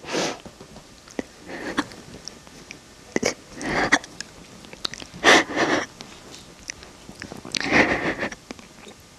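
A woman crying quietly: several sniffs and shaky breaths a second or so apart, the strongest about halfway through and again near the end.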